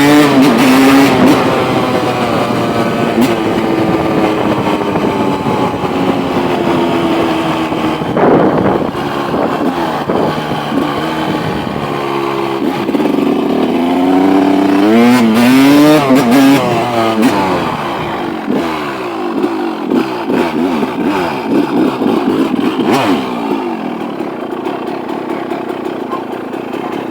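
KTM 200 EXC two-stroke single-cylinder dirt bike being ridden, its engine revving up and falling back again and again as it accelerates and shifts. It is loudest twice, near the start and a little past halfway, and quieter near the end.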